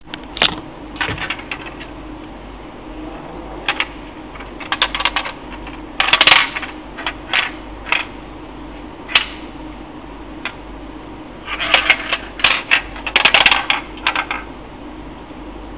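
Small steel balls rolling and clicking against the plastic maze inside the clear dome of a golf-game alarm clock as it is tilted by hand. The clicks come in irregular clusters, loudest about six seconds in and again between twelve and fourteen seconds.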